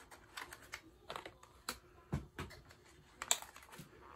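Light, irregular clicks and taps of a lip gloss's packaging being handled and opened.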